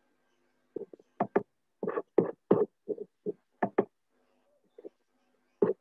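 A quick, irregular run of about a dozen short knocks or taps, bunched between about one and four seconds in, with another near the end.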